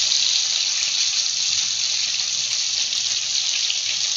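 Oat-coated chicken pieces deep-frying in hot sunflower oil: a steady sizzle.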